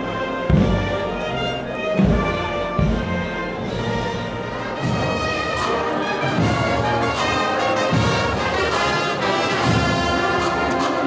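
Brass band playing a processional march, brass chords over heavy drum beats. About five seconds in, the sound cuts to another passage of band music.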